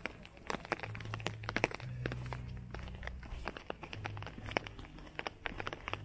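Footsteps on a wet paved walkway among many irregular light taps and clicks. A low hum sits under them from about a second in to three and a half seconds, and briefly again near four seconds.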